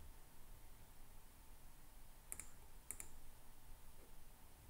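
Two faint clicks of a computer mouse, a little over half a second apart.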